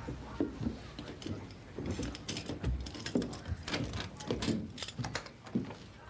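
Hands working a door's lock by hand: scattered light clicks and rattles, thickest from about two seconds in until near the end.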